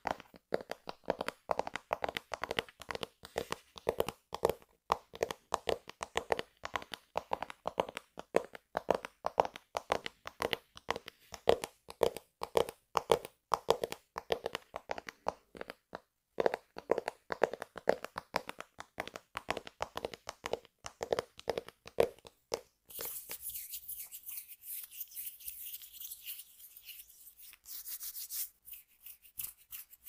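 Fingertips and nails tapping quickly and lightly on a tablet in a cat-print cover, a dense run of soft taps. About 23 seconds in the tapping stops and a steady high-pitched rustling hiss takes over.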